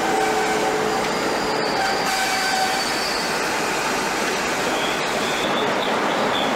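British Rail Class 47 diesel locomotive running as it moves slowly along the platform, a steady rumble with faint, thin wheel squeals coming and going. There are two very brief dropouts, about a second and a half in and about five seconds in.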